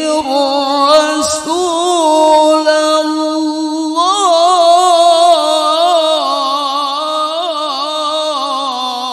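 Male qari reciting the Quran in the melodic tilawah style into a microphone, holding long notes and ornamenting them with quick trills and turns. About four seconds in he moves to a new, higher phrase.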